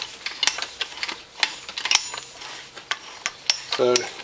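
Irregular metallic clicks, several a second, from a Honda Foreman 500 engine's gearshift mechanism as the shift shaft is turned with a screwdriver, stepping the transmission through its gears.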